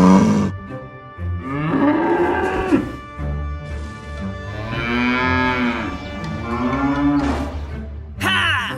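Cow mooing: several long, drawn-out moos one after another, used as the sound of a toy cow.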